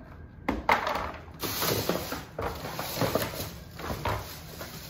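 Hard plastic toy playset parts being handled, knocking and clattering against each other, with rustling; a couple of sharp knocks come about half a second in.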